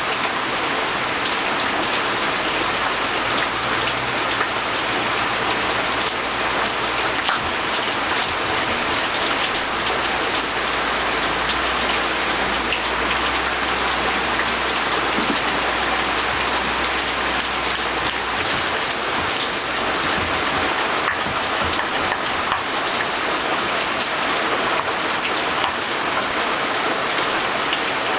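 Steady rain falling, an even hiss of many drops with no let-up.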